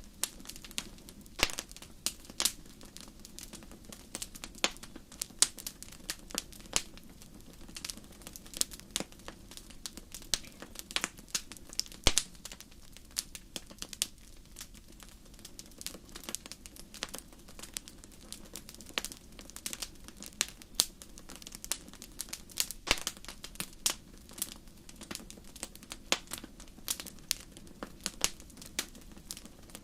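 Wood fire crackling in a fireplace: frequent irregular sharp pops and snaps over a faint steady low sound of burning.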